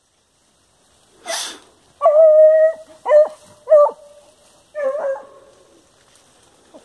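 Hunting dog baying on a paca's trail: one long drawn-out bay, then three short barks.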